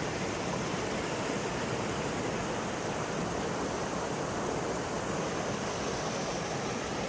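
Strong gusty wind, a steady rushing noise with no let-up.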